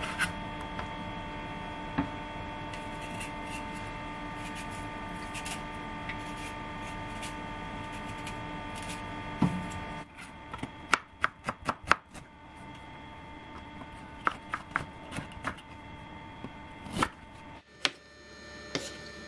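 Kitchen knife cutting fresh ginger root on a bamboo cutting board. For the first half, light knife scrapes and ticks sit over a steady hum. About halfway in the hum drops and sharp knife strokes start knocking on the board, including a quick run of about six in a row, then scattered single strokes.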